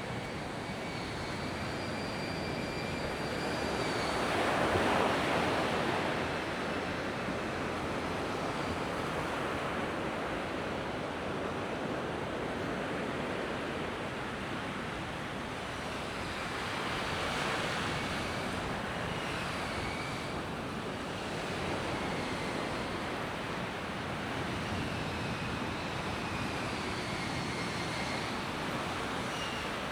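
Sea waves breaking on a beach: a steady rush of surf that swells twice, about five seconds in and again around seventeen seconds. A faint high whine comes and goes behind it.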